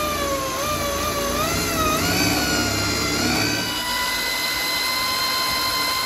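Corded electric drill boring a pilot hole into a broken trailing-arm stud in a car frame. The motor whine wavers with a low rumble under it while the bit bites for the first few seconds, then holds a steady pitch.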